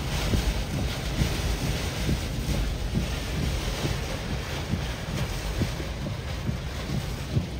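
Hurricane Debby's wind and driving rain: a steady rush of noise with frequent low, gusty buffets of wind on the microphone.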